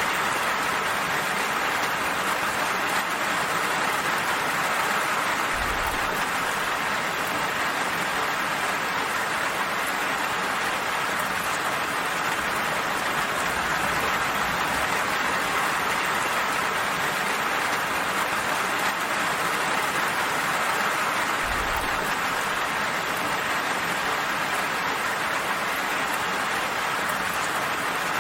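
Steady rain falling and pattering on surfaces, an even hiss, with a brief low rumble about six seconds in and again about twenty-two seconds in.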